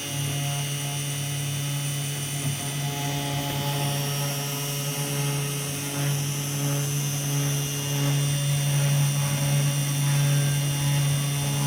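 Budget desktop CNC router running: a steady drone from its spindle motor as it works, growing slightly louder after about eight seconds.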